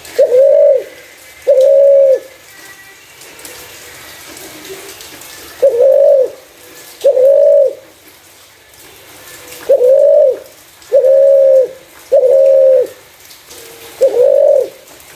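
Spotted dove cooing: eight clear, low coos of under a second each, given in short groups with pauses between.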